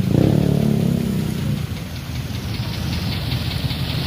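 Steady watery hiss on a flooded street, with a motorbike engine humming through the first second and a half.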